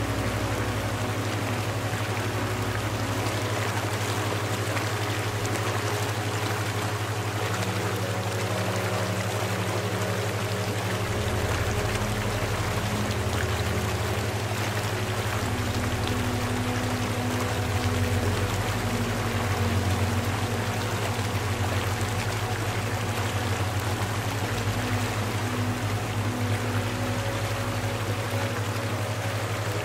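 Steady rushing water like a flowing stream, over a continuous low hum and faint held tones that shift in pitch now and then.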